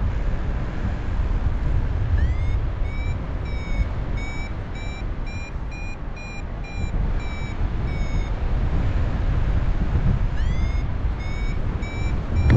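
Paragliding variometer beeping a climb tone, about two short beeps a second, rising a little in pitch and then easing off; it pauses and starts again near the end, signalling lift in a thermal. Heavy wind rumble on the microphone from the airflow in flight.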